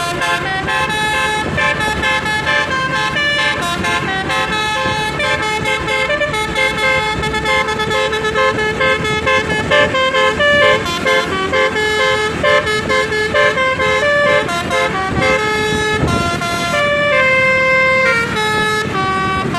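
Telolet basuri multi-tone bus horn playing a melody, its notes changing pitch in quick steps, over a low rumble.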